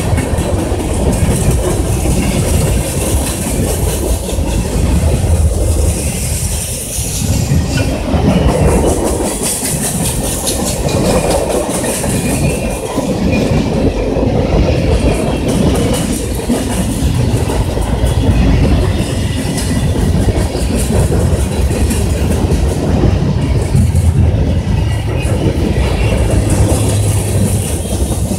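Freight train cars rolling past close by: a continuous loud rumble with steel wheels clacking over the rail joints.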